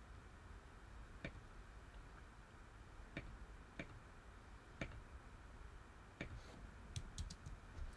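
Faint computer mouse clicks: single clicks spaced a second or more apart, then a quick run of three or four near the end.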